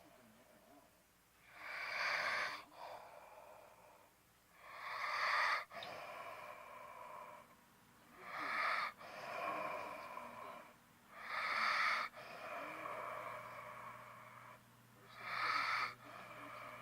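Slow, regular snoring of a sleeper: five breaths, one about every three and a half seconds, each a louder stretch followed by a longer, softer one.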